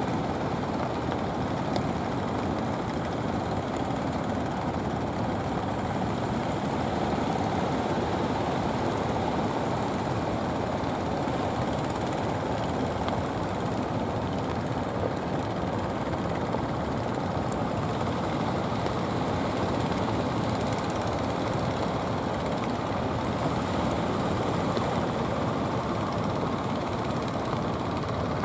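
Steady rushing noise of surf and wind, with the engines of wooden outrigger fishing boats running underneath.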